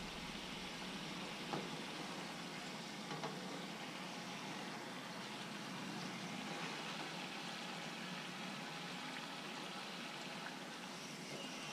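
Corn tortilla frying in a skillet of shallow hot cooking oil, a steady sizzle as it is held folded in half to set into a crunchy taco shell.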